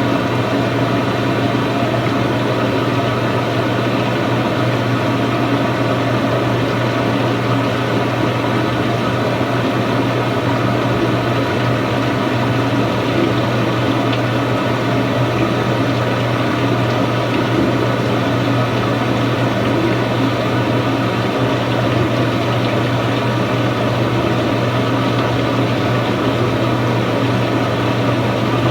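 Samsung washing machine running through a deep-fill wash cycle: a steady, unbroken low hum with an even rushing noise over it.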